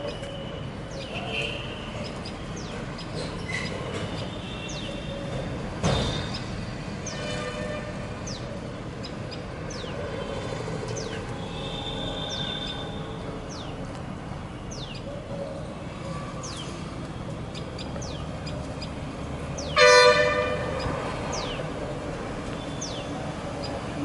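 Birds chirping over a steady background hum, with many short, high, falling chirps. A horn sounds once, briefly and loudly, about twenty seconds in, and fainter held horn-like tones come and go earlier.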